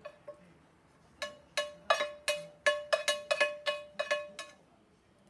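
Stainless steel saucepan knocked about a dozen times in quick, uneven succession, ringing briefly after each knock, as chicken rice is tapped out of it into a frying pan. The knocks start about a second in and stop shortly before the end.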